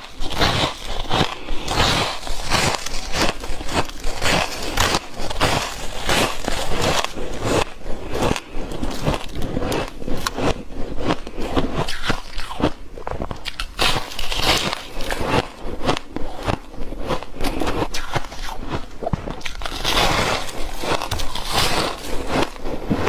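Close-up crunching as a person bites into dry, flaky white ice, with one crisp crack after another in quick succession and denser flurries of crunches now and then.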